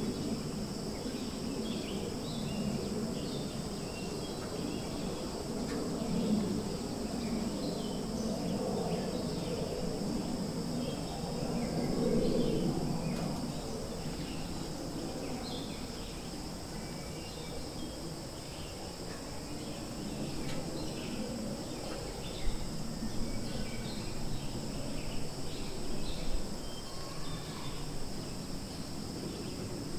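Outdoor ambience: steady high-pitched insect drone with scattered short chirps, over a low rumble of background noise that swells and fades. A few faint ticks come near the end.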